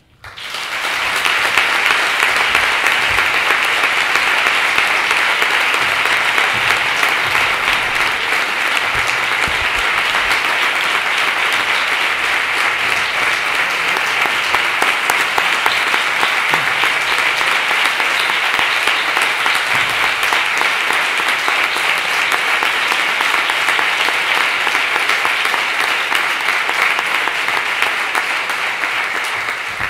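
A large seated audience applauding: long, steady clapping that swells within the first second and tapers off near the end.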